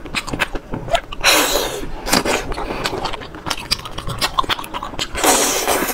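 Wet, sticky clicks and squelches of fingers working the meat out of sauce-coated sea snails, with two longer slurping sucks, one a little over a second in and one near the end.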